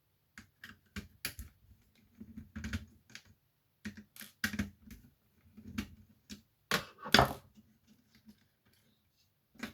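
Hard parts of a tape dictation machine being handled and pulled apart during a teardown: irregular sharp clicks and knocks in small clusters, the loudest two knocks about seven seconds in.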